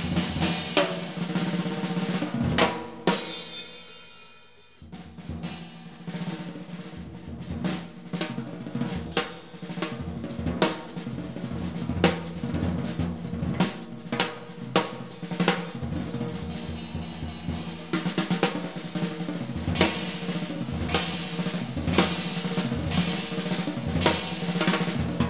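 Jazz drum kit played in free improvisation: dense, irregular snare and bass drum strokes with rolls and cymbals, starting abruptly. The playing thins out and dies away about three to five seconds in, then builds back up.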